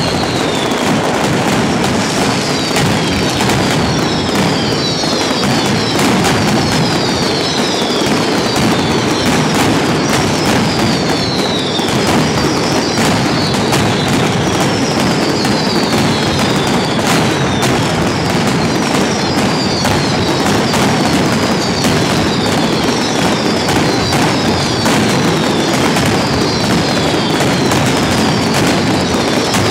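Mascletà: strings of firecrackers hung on overhead cords exploding in a dense, continuous barrage of rapid bangs. Repeated whistles falling in pitch come over it every second or two.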